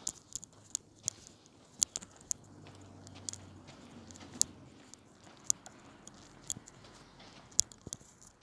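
Sharp, irregular clicks close to the microphone, roughly one a second, over a faint low rumble that swells and fades in the middle.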